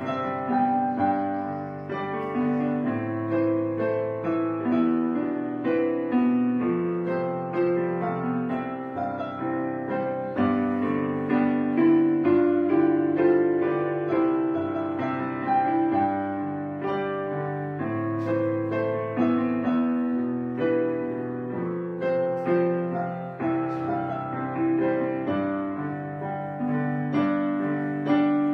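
Background piano music, slow and gentle, one note or chord after another.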